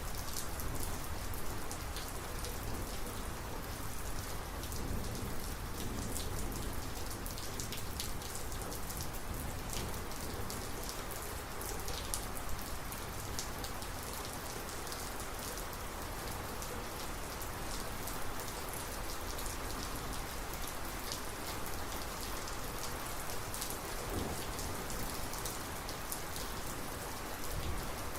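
Steady thunderstorm rain falling, with many sharp individual drop hits ticking through the steady hiss.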